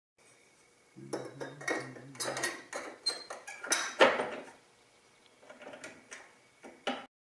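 A slotted aluminium tube clinking and scraping against the toothed metal pot grate of a propane camp stove as it is worked down onto the grate bars. It makes a string of irregular metal clicks and knocks, the loudest about four seconds in.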